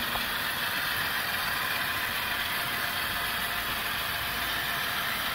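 HO scale model freight train running along the track: a steady mechanical whir from its wheels and locomotive drive gears.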